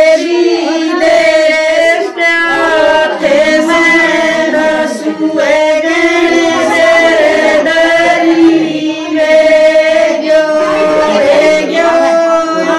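A group of women singing together in unison, a traditional wedding folk song in held, chant-like phrases.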